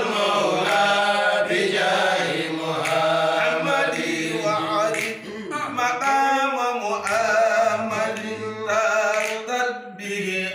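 A group of men chanting an Arabic devotional poem in praise of the Prophet Muhammad without instruments, a lead voice with others singing along in long held notes.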